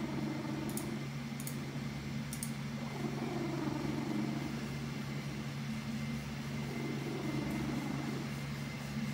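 Domestic cat purring loudly as it is stroked, its purr swelling and fading with each breath over the steady hum of a noisy computer fan.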